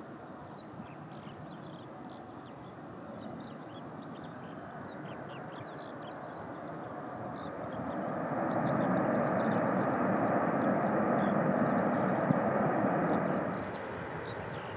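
Airbus A380's engines on the landing rollout, a low roar that swells to a loud rush as reverse thrust builds and then drops off sharply near the end.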